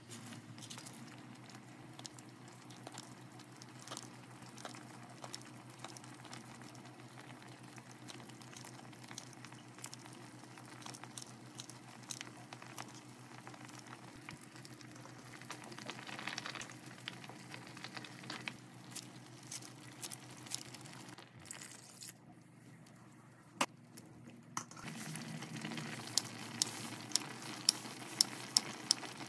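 Mala broth simmering in a steel pot, with soft plops and rustles as cabbage leaves and mushrooms go in, over a steady low hum. Near the end, kitchen scissors cut a sheet of fish cake: a rapid run of sharp snips, two or three a second.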